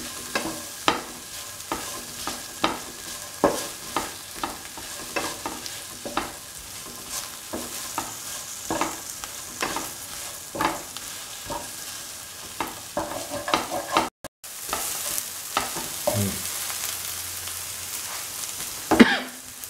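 Chopped okra sautéing in a pan: a spatula scrapes and turns it a little more than once a second over a steady low sizzle, cooking off the okra's sliminess. The sound drops out for a moment about three quarters of the way in, and a firmer scrape comes near the end.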